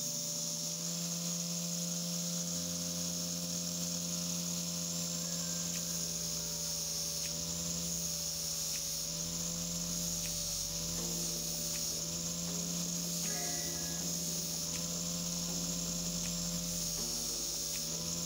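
Angle grinder running steadily with a high whine, its abrasive disc grinding a steel tool pressed against it; the motor note wavers slightly at times.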